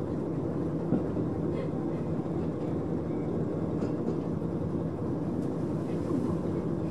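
Cabin sound of a KiHa 40 diesel railcar running at about 30 km/h and slowly losing speed: a steady low rumble of the underfloor diesel engine and the wheels on the rails, with one light knock about a second in.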